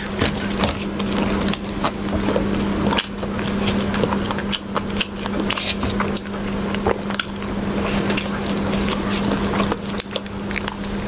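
Close-miked eating: chewing and biting into roasted chicken pieces, with many small wet clicks and crackles from mouths and fingers tearing meat, over a steady low hum.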